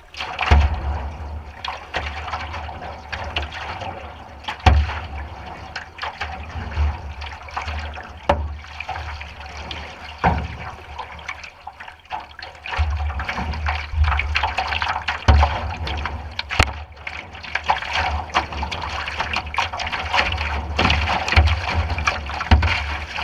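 River water rushing and splashing against a canoe's bow as it runs through a choppy, rippled stretch, with low rumbling and a sharp knock every few seconds.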